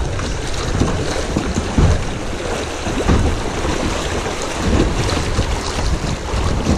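Choppy river rapids splashing around a kayak as it is paddled through, with wind buffeting the microphone in low, uneven gusts.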